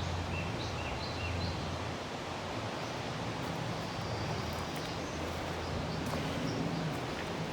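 Steady outdoor background noise: an even hiss with a low rumble underneath. A few faint short high chirps come in the first couple of seconds and again around four seconds in.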